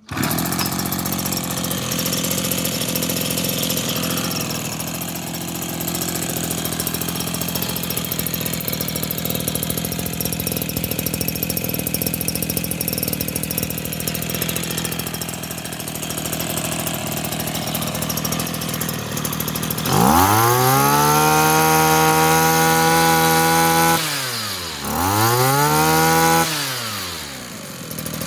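Shibaura brush cutter's small two-stroke engine running steadily at idle, then revved up to a high, steady pitch about twenty seconds in and held for about four seconds, dropping back and revved again briefly before falling away near the end: a test run after a carburetor repair.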